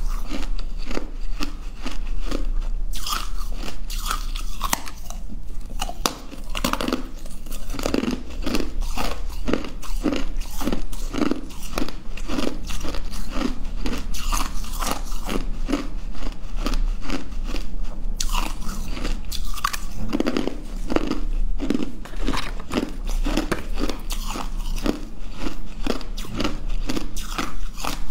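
Close-up crunching and chewing of hard chunks of blue-tinted ice: bite after bite, several sharp cracks a second, with no pauses.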